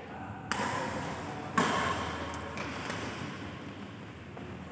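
Badminton rackets striking the shuttlecock in a singles rally: two sharp hits, about half a second in and again a second later, the second the louder, each echoing briefly around a large sports hall.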